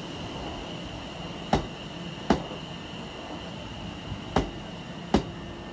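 Train wheels knocking over rail joints: two pairs of sharp knocks, each pair under a second apart, over a steady running hum with a faint high whine.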